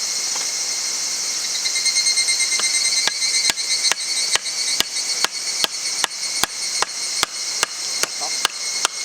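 Steady, even hammer strikes, about two and a half a second, begin about three seconds in. A continuous high insect chorus runs underneath and swells about two seconds in.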